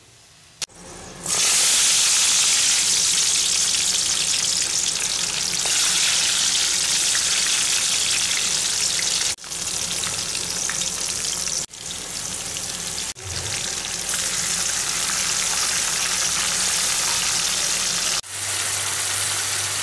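Hot cooking oil sizzling in a kadai as fenugreek seeds and then sliced onions fry for a tempering; a steady loud hiss that starts about a second in and breaks off sharply for a moment several times.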